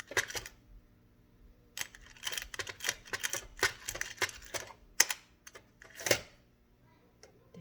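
Small loose screws clicking and rattling as they are sifted through by hand in search of a longer one: a quick, uneven run of clicks over about four seconds, with one sharp louder click about five seconds in.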